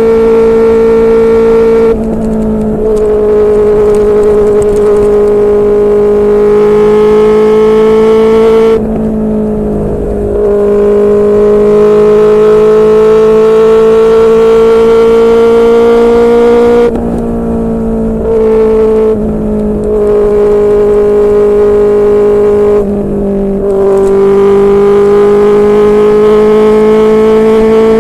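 QJMotor SRK600's inline-four engine running through a Yoshimura R11 aftermarket exhaust under way at high revs. The pitch climbs slowly and drops back a few times, about two, nine, seventeen and twenty-three seconds in, with the sound briefly quieter at each drop.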